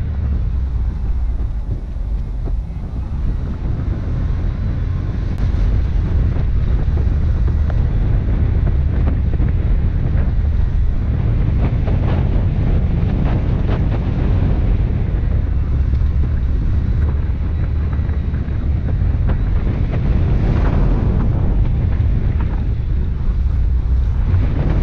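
Wind buffeting the microphone of a camera mounted on the outside of a moving car: a loud, steady low rumble with no distinct events.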